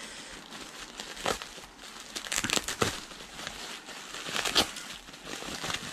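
Packaging being crinkled and rustled by hand as a parcel is unwrapped, in irregular bursts of crackling.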